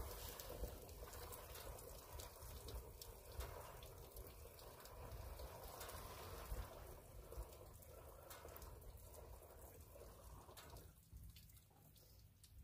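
Water pouring from a cooler jug into the plastic tank of an ATV-mounted sprayer: a faint, steady splashing that dies down near the end.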